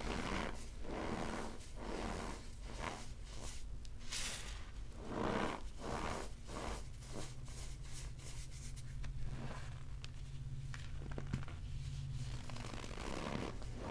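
Hands squeezing and crumbling cornstarch blocks topped with baking soda: irregular crunches and crumbling of the packed powder, with the squeaks that compressed cornstarch gives. The biggest crunches come about four and five seconds in.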